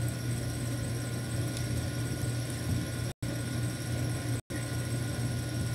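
Steady low hum with hiss in the background, dropping out to dead silence twice for a split second, about three seconds in and again just over a second later.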